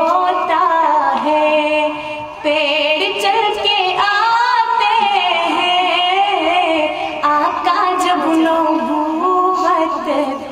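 A woman singing a naat, an Urdu devotional poem in praise of the Prophet, into a microphone. She holds long, wavering, ornamented notes in a few drawn-out phrases, with a short breath about two seconds in.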